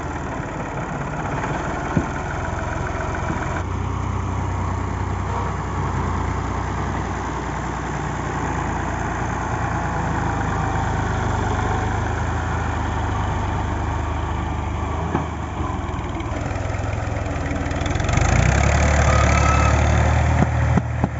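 Al-Ghazi tractor's diesel engine running under load as it tries to pull a trolley heavily loaded with sugarcane that is stuck in mud. It runs steadily and grows louder near the end.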